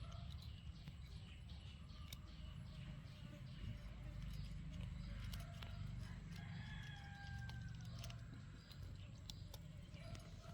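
Faint clicks and crunches of cats eating. A rooster crows once about six seconds in.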